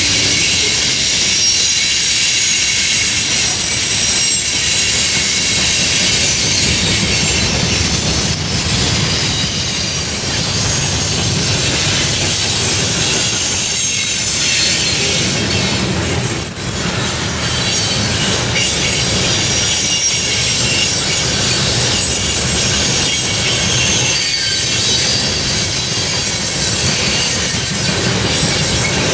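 Freight train cars (covered hoppers, then tank cars) rolling past close by: a steady loud rumble of wheels on rail with high-pitched squealing from the wheels.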